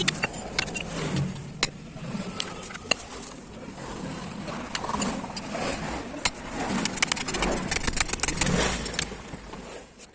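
Metal engine parts and hand tools clinking and knocking during an engine teardown, with a fast run of clicks between about seven and nine seconds in.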